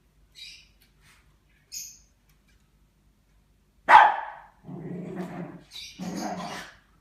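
Small dog barking and growling in play as it attacks a teddy bear: a few faint high yips early, then a loud sharp bark about four seconds in, followed by two longer growls.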